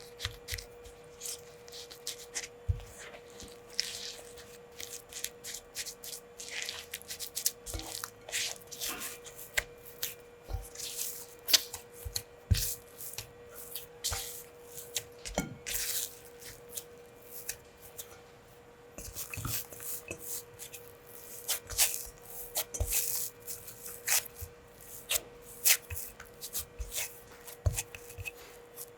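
Hands working food by hand in a kitchen: irregular soft rubbing, tapping and clicking, with a quieter pause about two thirds of the way in. A faint steady hum lies underneath.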